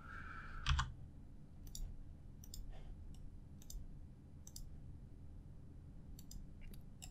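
Computer mouse buttons clicking now and then, about eight single clicks spaced irregularly, over a faint steady low hum.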